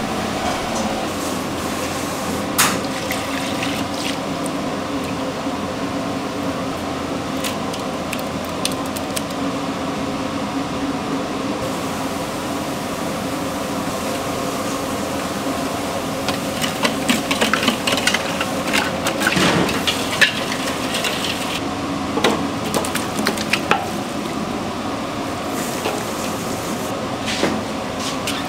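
Kitchen food-prep sounds: a steady machine hum under scattered clicks, knocks and clatter from handling, which grow busier about two thirds of the way through.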